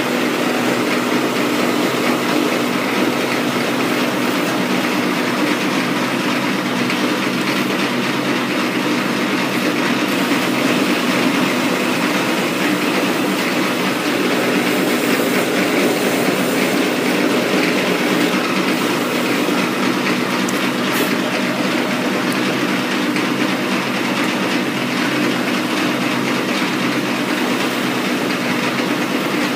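Metal lathe running steadily under power feed while the turning tool cuts the outside of a metal shaft: an even, unbroken mechanical running noise from the machine and the cut.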